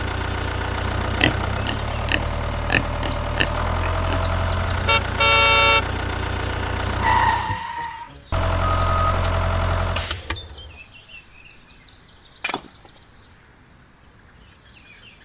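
Mini tractor engine running steadily, with a short horn honk about five seconds in. The engine drops out briefly around eight seconds, runs again, then stops about ten seconds in, leaving only a few faint clicks.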